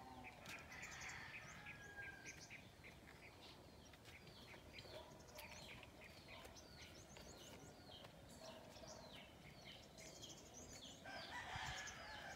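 Faint bird calls: many short, falling chirps repeated throughout, with a rooster crowing.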